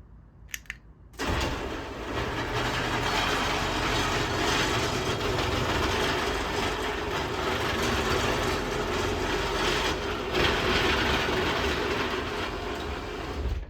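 Craftsman T-rail garage door opener closing a sectional garage door. A faint click, then the opener and door run steadily for about twelve seconds and stop near the end.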